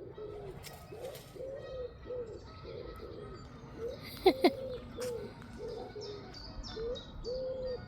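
Dove cooing in a steady run of short low notes, about two a second, with small birds chirping faintly and high in the second half. About four seconds in come two sharp, loud clicks close together.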